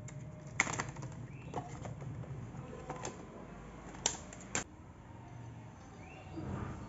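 Clear plastic blister pack of a 4-inch circular saw blade being pried open and the blade handled out of it: irregular sharp plastic clicks and crackles, the loudest about half a second in and twice around four seconds in.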